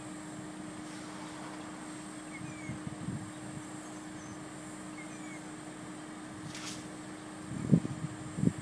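Vehicle engine idling with a steady low hum. A short high chirp sounds twice, and two low thumps come near the end, the first of them the loudest sound.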